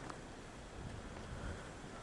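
Faint, steady wind noise with uneven low rumbling gusts on the microphone.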